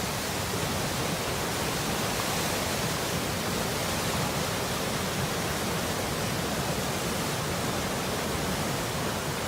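Floodwater of a swollen river rushing in a torrent: a steady, dense rush of churning water.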